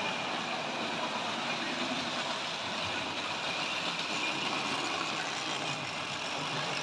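Tri-ang model train running steadily along the track: an even hum of a small electric motor and wheels on the rails.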